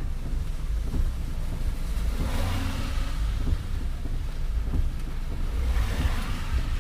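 Road noise from a vehicle travelling in heavy rain: a steady low rumble with wind on the microphone. A hissing noise swells up about two seconds in and again near the end.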